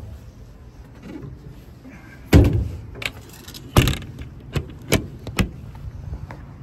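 Metal clunks and latch clicks from a service truck body's compartment doors: one heavy thud a little over two seconds in, then a string of sharper knocks and clicks.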